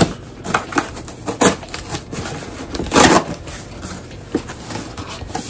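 A package being opened by hand: packaging crackling and clicking in an irregular run, with a louder tearing rustle about three seconds in.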